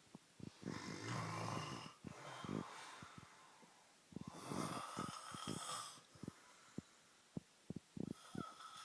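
A man snoring: two long, rattling snoring breaths about three seconds apart, with short clicks between them.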